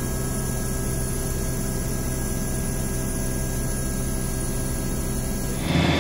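Westland Wasp helicopter heard from inside the cabin in flight: the steady drone of its Rolls-Royce Nimbus turboshaft and rotor, with a thin high whine above it. Just before the end it cuts abruptly to a louder engine sound.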